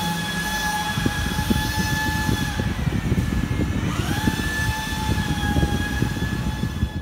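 A steady high-pitched mechanical whine with overtones, dipping in pitch about three seconds in and coming back a second later, over a low rumble.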